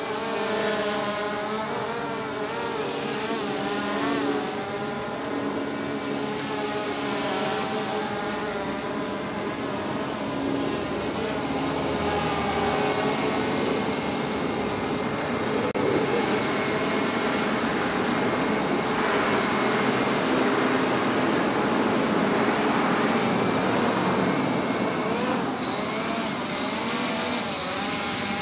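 Small multirotor drone's electric motors and propellers whining, the pitch wavering up and down as the controls are worked, with a louder, noisier stretch in the second half.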